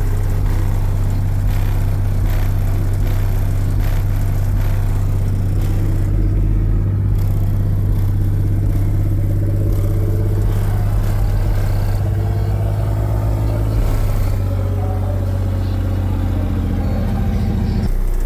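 Car audio system's Resilient Sounds subwoofers playing loud, steady deep bass.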